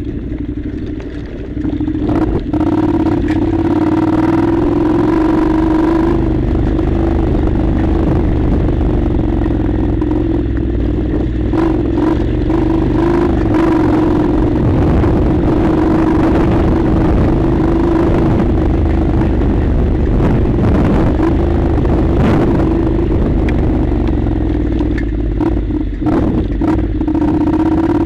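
Honda NC700's 670 cc parallel-twin engine running under load as the motorcycle rides a rough dirt track, picking up about two seconds in and then holding a steady drone, with clatter from the loose surface.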